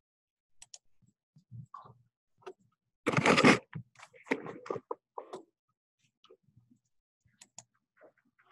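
Scattered clicks and rustles of room handling noise, with one loud half-second burst of noise about three seconds in, followed by a short cluster of smaller knocks.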